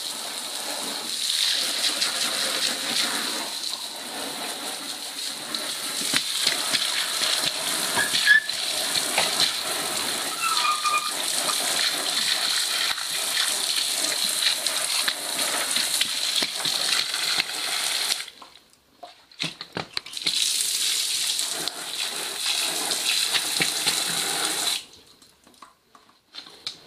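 Water pouring steadily into a container of soaking mushroom substrate. It cuts off suddenly about two-thirds of the way through, starts again for a few seconds, then stops.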